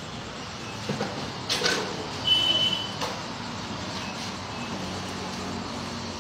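Steady background of vehicle traffic with a couple of knocks about a second and a half in, then a short high beep just after two seconds, the loudest sound.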